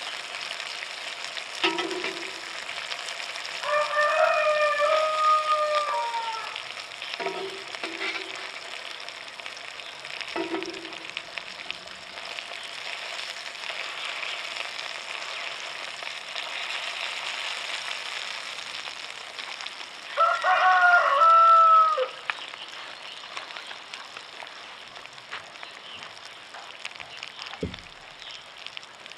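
Sausage patties sizzling steadily in grease in a steel frying pan on a parabolic solar cooker. A rooster crows twice, about four seconds in and again about twenty seconds in, each crow lasting about two seconds and louder than the sizzle.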